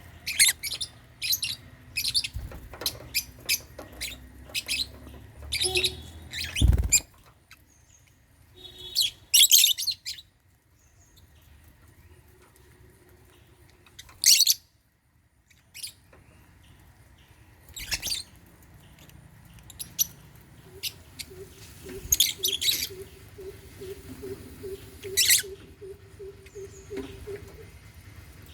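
African lovebirds chirping in short, sharp, high-pitched bursts with quiet gaps between them. A single low thump comes about a quarter of the way through.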